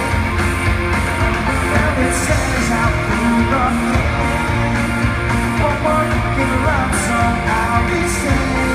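Live rock band performance: a male lead vocal over electric guitar and band, recorded from the audience in a concert hall.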